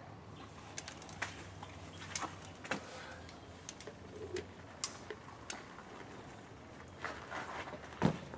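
Scattered light clicks and knocks of a lead climber's gear, carabiners and quickdraws clinking as the rope is clipped into a bolted quickdraw, with a sharper knock near the end. A brief low bird call sounds about four seconds in.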